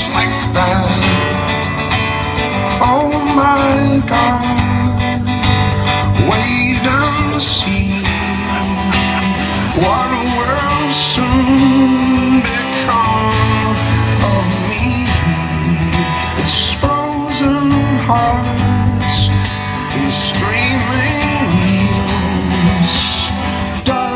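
Live solo acoustic guitar playing a steady strummed pattern, with a voice gliding through a few wordless notes at times.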